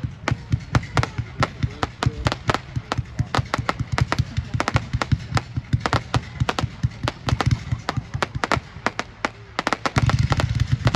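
500 gram consumer fireworks cake (Magnus 'Amazing Pyro') firing: a rapid, uneven string of sharp reports and crackles, several a second, over a low rumble. About ten seconds in, a louder low rumble joins.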